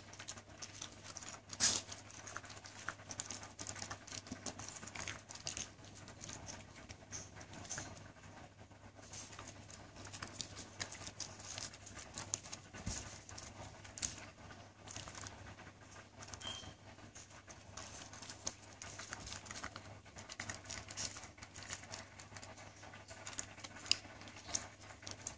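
Siberian husky panting, with many small clicks and smacks from her mouth.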